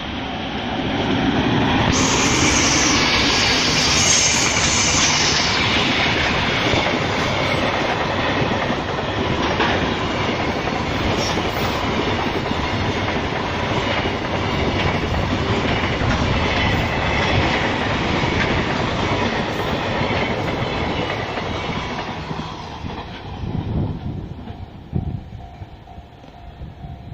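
A train passing close by, its wheels clattering over the rail joints; the noise builds about a second in, stays loud for some twenty seconds, then fades away near the end.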